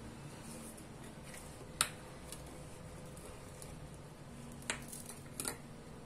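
A few light clicks and taps as metal cone moulds are worked out of baked pastry horns and knock against a serving tray. The sharpest tap comes about two seconds in and two more near the end, over a faint steady hum.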